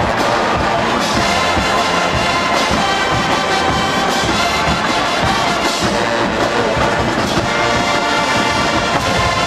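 College marching band playing a contemporary pop song, the brass section carrying the melody over drums keeping a steady beat.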